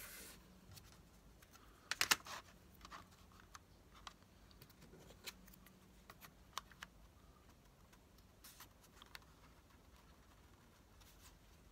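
Scattered light taps and clicks of small wooden model parts and a plywood block being set down and shifted on a metal table saw top, a quick cluster of clicks about two seconds in the loudest.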